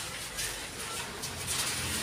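A small scoop digging and scraping through loose soil in a plastic plant pot, in a run of gritty scrapes that grows busier toward the end.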